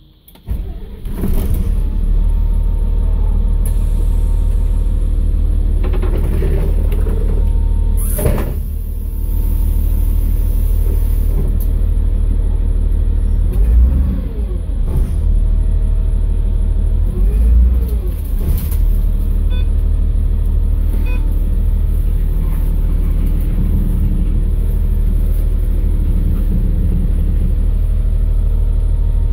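Solaris city bus's 6.7-litre diesel engine starting up about half a second in, then idling steadily. It is revved twice, briefly, around 14 and 17 seconds in, each time rising and falling back to idle. There is a sharp clack about 8 seconds in.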